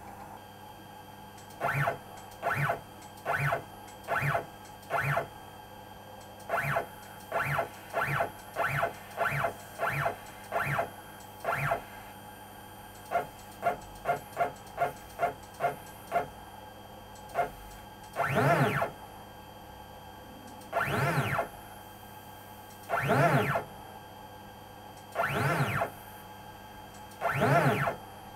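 Stepper motors of a DIY CNC router jogging the Z axis in short moves, each one a brief whine: about a dozen spaced under a second apart, then a quicker run of shorter ones, then five longer whines of about a second each.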